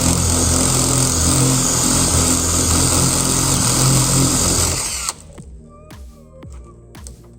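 Electric drill running under load, boring into a metal lock cylinder to release it, for about five seconds, then stopping abruptly.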